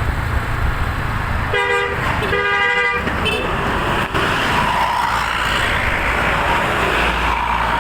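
Bus telolet musical air horn sounding two short blasts, starting about one and a half seconds in, then a brief third toot, over steady traffic and engine rumble.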